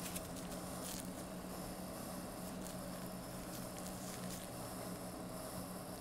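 Steady low electrical hum with a faint hiss, and a couple of faint clicks in the first second.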